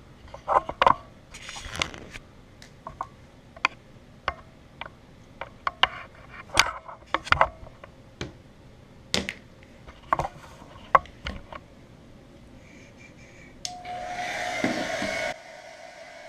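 A run of scattered sharp clicks and knocks, then a hair dryer switches on near the end with a steady whine and rush of air. It runs loud for about a second and a half, then drops to a quieter, lower-setting hum.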